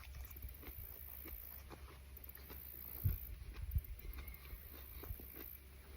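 Faint wet chewing of a bite of raw Gator Jigsaw chili pepper, with small crunching clicks and two low thumps a little after three seconds in.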